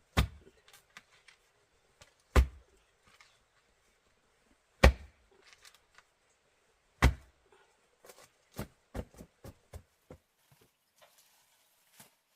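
Four heavy knocks about two seconds apart, each with a low thud, followed by a quick run of six or seven lighter knocks.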